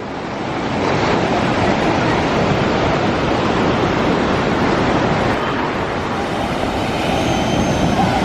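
Ocean surf breaking and washing in: a steady rushing noise that builds over the first second and then holds.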